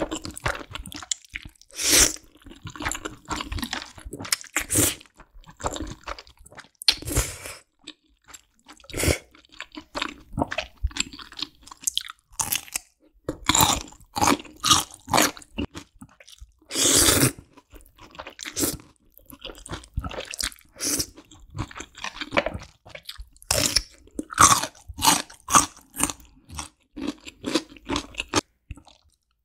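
Close-up eating sounds: crisp crunching bites of cubed radish kimchi and wet chewing of black bean noodles, coming in irregular bursts of crunches.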